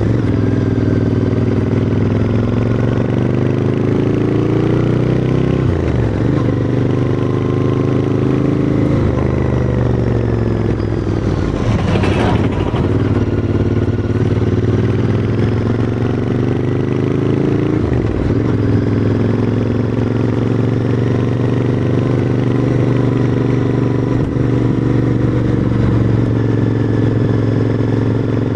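Royal Enfield Interceptor 650's parallel-twin engine pulling uphill, heard through its exhaust, its note rising and falling with the throttle and breaking sharply in pitch several times. A brief rush of noise passes about twelve seconds in.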